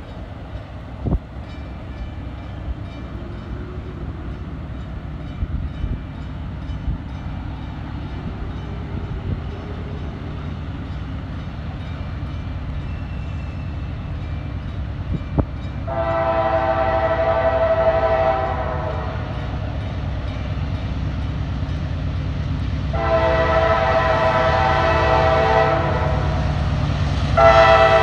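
Norfolk Southern freight train approaching, the low rumble of its diesel locomotives growing. The lead locomotive's air horn sounds a chord in two long blasts and then a short one near the end. The long, long, short pattern is the opening of the standard grade-crossing signal.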